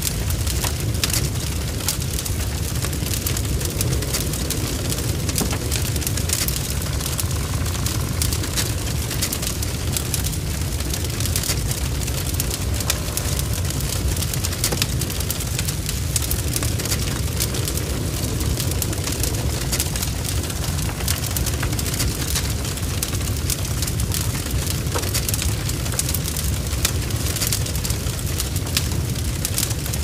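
Wood fire burning: a steady low rumble of flame with constant, irregular crackles and spitting from the burning wood.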